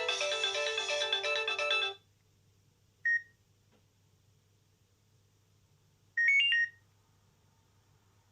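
A Nokia 6230i mobile phone's speaker playing a synthesized ringtone melody that cuts off abruptly about two seconds in. A single short electronic beep follows about a second later, and a quick three-note beep rising in pitch comes near six seconds in.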